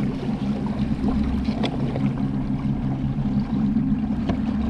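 Kayak running under a Newport Vessels NK-180S brushless electric motor: a steady low hum with water rushing along the hull and small splashes.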